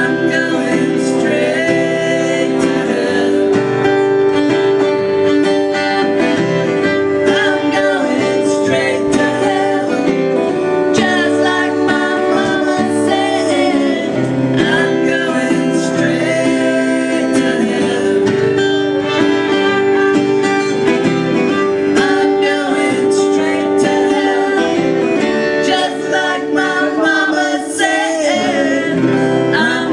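Live country-style song: a strummed acoustic guitar accompanying a man and a woman singing. The singing is sustained, with long held, wavering notes near the end.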